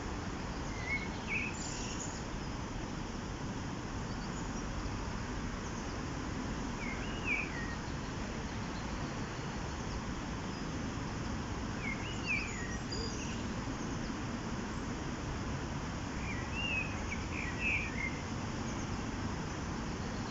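A small bird calling a short arched chirp phrase four times, about every five seconds, over a steady low rushing background noise.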